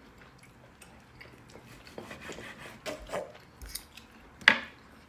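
Knife and fork clicking and scraping on a plate while steak is cut, with one louder clink near the end.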